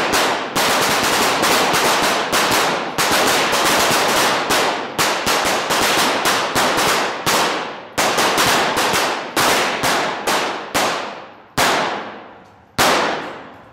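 .22 rimfire pistols fired by a line of shooters: a rapid, overlapping string of sharp shots, each with a long echoing tail from the indoor range. The firing thins out to a few single shots near the end.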